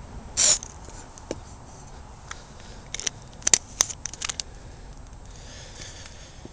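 A short hiss of hairspray sprayed from an aerosol can into a mini potato gun's chamber, then a run of sharp clicks and taps as the gun's cap and parts are handled, the loudest two clicks about three and a half seconds in.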